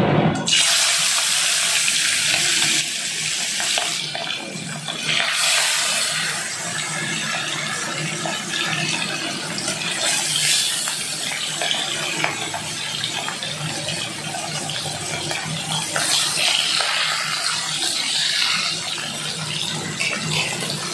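Fish pieces rubbed with turmeric and salt sizzling as they fry in hot oil in an aluminium kadai, a steady loud sizzle that starts sharply about half a second in as a piece is slid into the oil.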